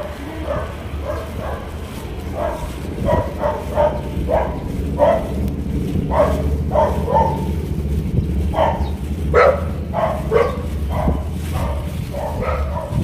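Small dog barking in short, repeated yaps, roughly two a second and irregular, over a steady low rumble from the moving bicycle.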